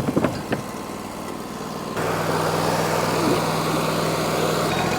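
Wood-Mizer LT40 portable sawmill's engine running steadily, with a few sharp clicks near the start; about two seconds in the sound steps up louder and fuller and stays there.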